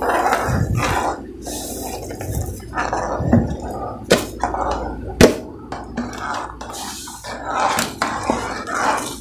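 Metal ladle stirring semolina into boiling water and vegetables in an aluminium pressure cooker, scraping and knocking against the pot, with a sharp clank about five seconds in. The semolina is stirred in as it is poured so it doesn't form lumps.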